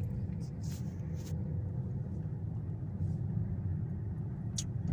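Steady low rumble of a car driving, heard from inside the cabin, with a few light clicks.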